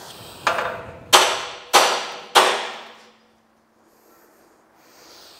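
Hammer blows on the steel chassis rail of a Toyota BJ40 Land Cruiser: four strikes about two-thirds of a second apart, the first lighter, each ringing briefly. The bent rail is being hammered flat to straighten it.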